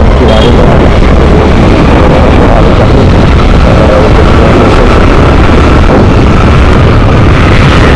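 Loud wind rush and buffeting on the microphone of a moving two-wheeler, with engine and road noise beneath.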